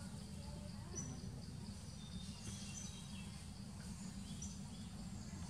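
Forest ambience: short, high bird chirps and tweets scattered over a steady low rumble.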